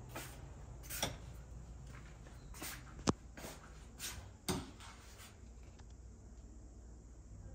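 Footsteps and light knocks in a small room, one or two a second, with a sharper click about three seconds in; they stop about five seconds in, leaving a low steady hum.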